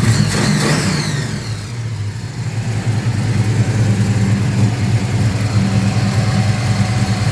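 Small-block Chevy V8 running with a lumpy cam: a quick rev falls back in the first second or two, then it idles steadily with the cam's bounce. It is running rich and clean at idle after the carburettor fix.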